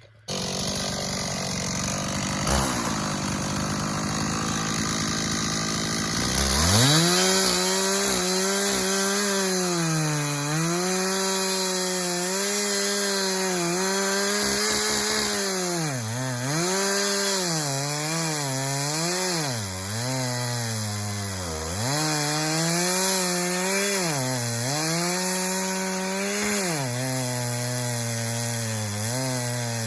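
Chainsaw engine running, then opened up to full throttle about six seconds in, making the felling back cut through the trunk. Its pitch sags and recovers again and again as the chain bites into the wood.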